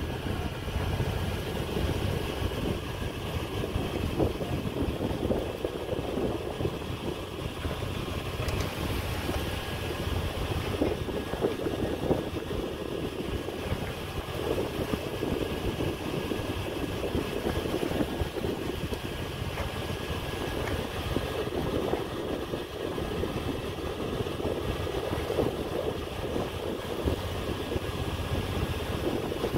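Steady running noise of a sailing ketch under way at sea, with a faint high tone held steady over it.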